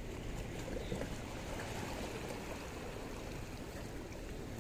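Water lapping and washing against shoreline rocks, a steady noise with a low rumble of wind on the microphone.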